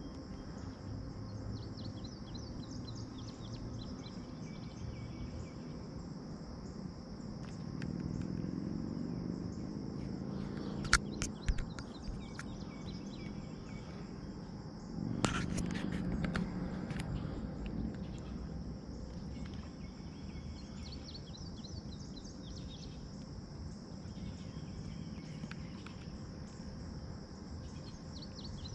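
Steady high-pitched insect chorus with birds chirping now and then. A few sharp clicks with a low rumble come about halfway through.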